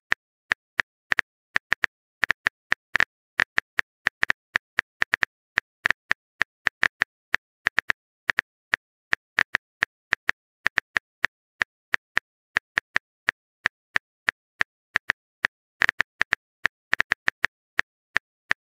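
Texting-app keyboard typing sound effect: a long run of short tapping clicks, several a second and unevenly spaced, as a message is typed out.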